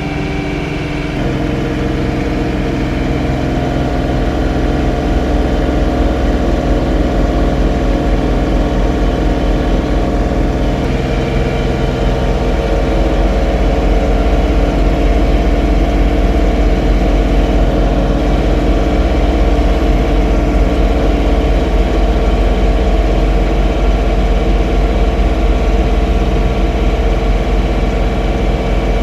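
John Deere 3046R compact tractor's diesel engine running steadily while snow blowing, its pitch shifting slightly about a second in and again about eleven seconds in.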